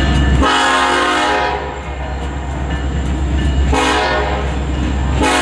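Air horn of a BNSF EMD SD70ACe diesel locomotive leading a freight train, sounding for a level crossing. A long blast begins about half a second in, a second blast comes about three seconds later, and a third starts right at the end.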